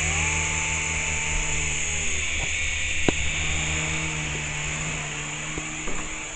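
A small RC helicopter's electric motor and rotor whirring steadily. A whine rises and then falls over the first two seconds, and a sharp click comes about three seconds in.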